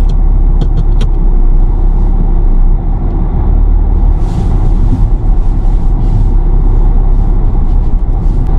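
Car engine running hard and rumbling steadily as the two-wheel-drive car struggles to climb a muddy hill, with a couple of sharp clicks about a second in.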